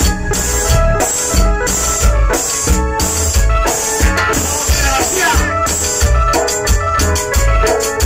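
Live tropical cumbia band playing dance music: electronic keyboard melody over a steady bass and drum beat.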